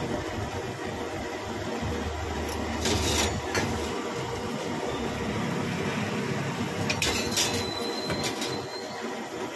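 Hand mixing a crumbly mixture in a stainless steel bowl: steady scraping and rustling against the steel, with a few sharp metallic clinks about three seconds in and again around seven to eight seconds in.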